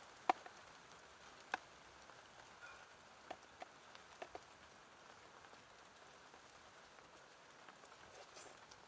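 Steady patter of light rain, with a few sharp ticks and taps, the loudest in the first couple of seconds.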